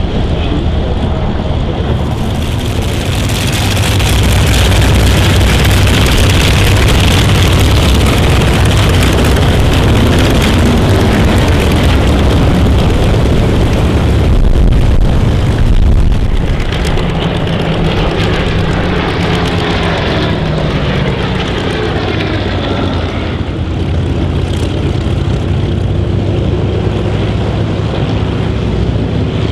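Propeller-driven Corsair F4U-7 with its Pratt & Whitney R-2800 radial engine, running loudly through a flypast. About halfway through it is heard on the ground, the engine running at lower power while taxiing, its pitch rising and falling.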